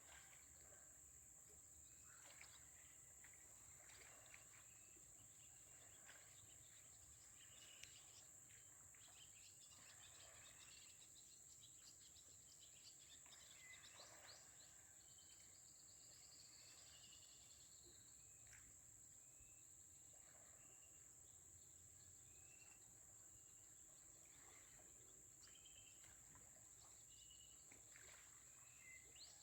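Faint bird calls at dawn: short, scattered chirps and whistled notes, over a steady high-pitched hiss.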